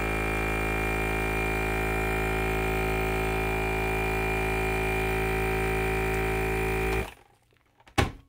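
FoodSaver vacuum sealer's pump running with a steady electric hum, then stopping abruptly about seven seconds in, followed by a single click. The pump keeps running longer than it used to without the bag vacuuming and sealing.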